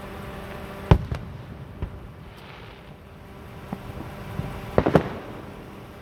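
Fireworks exploding in the air: one sharp bang about a second in, a few lighter pops after it, then a quick run of three or four bangs close together near the end.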